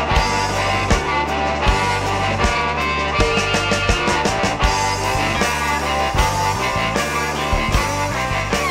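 Blues-rock band recording with a steady drum beat and no singing.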